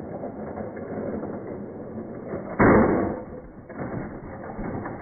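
G-scale model train running along the track, then hitting a rock on the rails about two and a half seconds in: a sudden loud crash and clatter of the plastic cars, lasting about a second, as the train derails.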